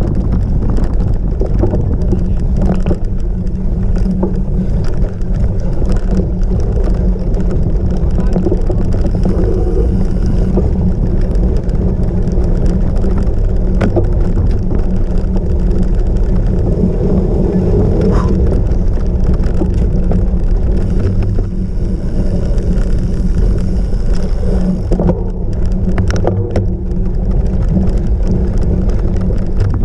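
Wind rushing over the microphone of a camera riding along on a cyclocross bike, with occasional short knocks and rattles from the bike on rough ground.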